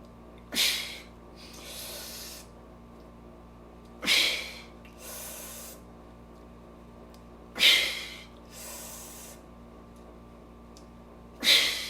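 A man's forceful breathing in a repeating cycle: a sharp, loud blast of breath followed by a quieter drawn breath, four times at about three-and-a-half-second intervals, as part of a tensing exercise done before playing the trumpet.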